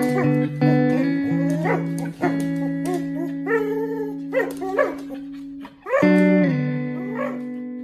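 Husky making repeated short, rising-and-falling vocal calls while tugging on a toy, over background music with guitar.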